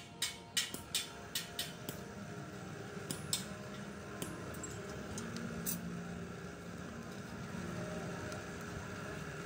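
Quick metallic taps, about two or three a second, dying away over the first two seconds, then a few scattered clinks of metal. After that a steady low mechanical hum.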